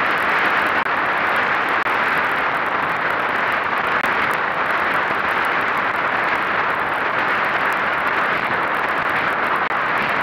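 Steady rush of water and wind as an A-class catamaran sails at about eight to nine knots, spray running along the hull.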